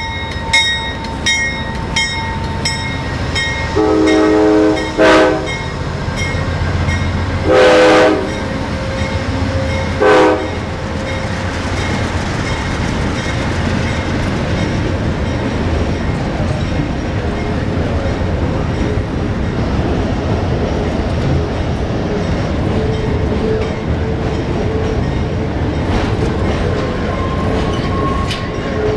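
Amtrak locomotive's Nathan K5LA five-chime horn sounds three blasts, the first the longest and the last short, after a bell ringing about twice a second at the start. Then the train runs past with a steady rumble and clickety-clack of wheels over rail joints.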